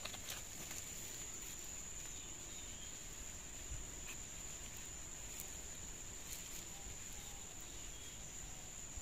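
A steady, high-pitched insect drone holding one unbroken note, with a few faint clicks as the small plastic speaker is handled.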